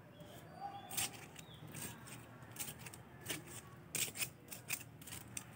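Short, irregular scratching and scraping of a small hand tool digging into soft soil, a dozen or so separate scrapes with quiet gaps between them.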